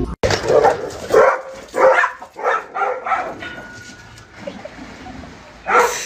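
A dog barking repeatedly, about six barks in quick succession over the first three seconds, then one more bark near the end.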